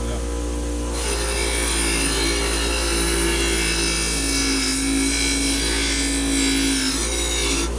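Bench grinder motor running with a wire wheel, and the steel lamp shade pressed against the spinning wheel, a steady scratchy brushing as the wire strips off old paint. The brushing starts about a second in and stops abruptly near the end as the shade is pulled away, while the motor hum continues.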